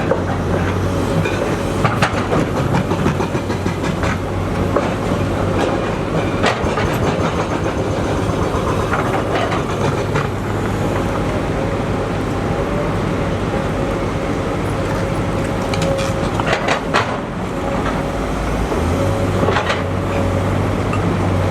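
SANY SY240C-9 excavator's diesel engine running steadily while it works, with scattered metallic clanks and knocks. Its low hum fades through the middle and swells back in near the end.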